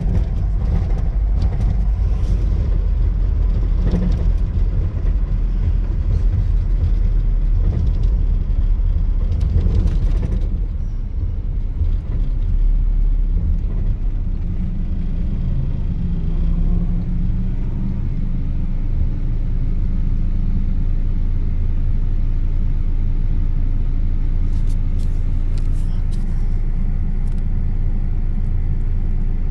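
A 2000 Nissan Frontier XE pickup being driven, its 4-cylinder engine running under a steady low rumble of road noise. There are knocks and rattles over the first ten seconds or so, and it runs smoother from about twelve seconds in.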